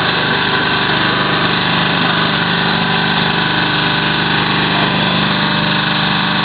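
Hydraulic waste-paper baler's electric motor and pump running, a steady, unchanging hum.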